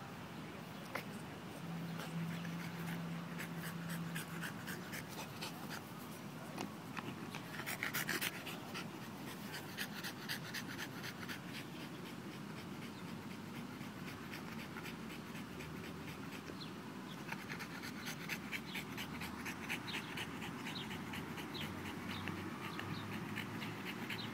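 French bulldog panting hard with its mouth open and tongue out, a long run of quick, short breaths.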